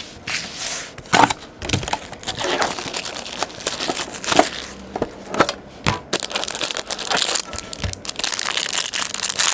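Foil wrapper being torn and crumpled by hand while a hockey card pack is opened: crackling, crinkling noise with many sharp clicks of handling.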